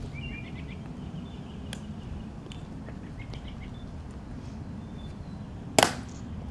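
Small birds chirping over a steady low background noise. Near the end comes one sharp click from the tomb guards' drill.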